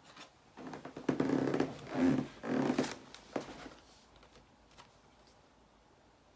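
Packaging being handled and opened, with rustling and crinkling in several bursts from about half a second to four seconds in, then quiet.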